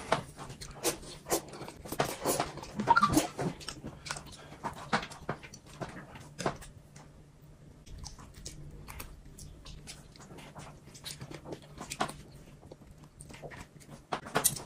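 Close-miked eating: chewing and slurping noodles, with short wet smacks and clicks at irregular intervals.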